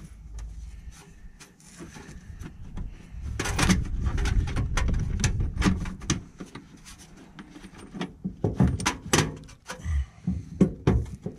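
Scattered metallic clicks, knocks and scraping of a towbar mounting bolt and nut being worked into place by hand under the rear of a car, with low rubbing and knocking that grows louder a few seconds in and again near the end.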